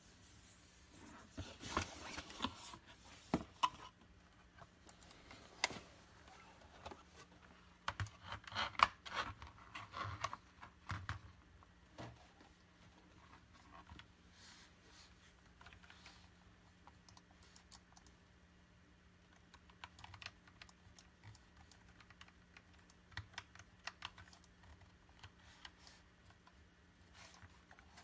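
Keys of a Razer Tartarus Pro gaming keypad being pressed: irregular bursts of clicks, busiest in two flurries in the first half, then sparser single presses, over a faint steady hum.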